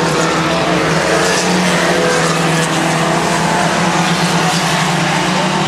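Engines of racing mini trucks running on the track, a loud steady drone.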